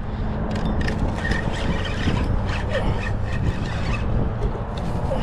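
Steady low rumble of road traffic, with a few faint clicks and rustles of handling close by.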